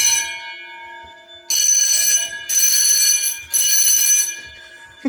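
Fire alarm bells on a Notifier 3030 system ringing in a three-burst temporal pattern: three rings about a second apart, each dying away briefly between bursts, then a longer pause. The alarm is sounding with the building's main power cut off.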